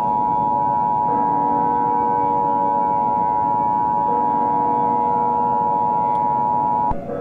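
Emergency Alert System two-tone attention signal: a pair of steady tones just under 1 kHz (853 and 960 Hz) held unbroken, cutting off suddenly near the end, over a low steady drone.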